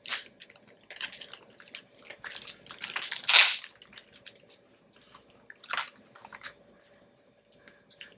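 Packaging and a metal keyboard plate being handled: irregular rustling, crinkling and light clicks, with a louder crinkly rustle about three seconds in.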